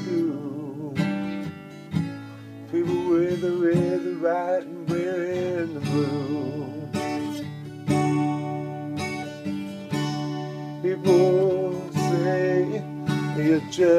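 Acoustic guitar strumming chords, with a wavering, held melody line over it, in a break between sung lines of a song.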